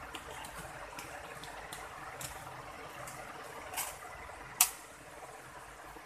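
Hand handling the plastic bottom case of an HP EliteBook 8460p laptop: scattered light clicks and taps, with one sharp click about four and a half seconds in.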